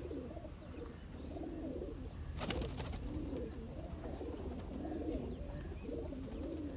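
Domestic pigeons cooing, low warbling coos repeating one after another. A single sharp click a little after two seconds.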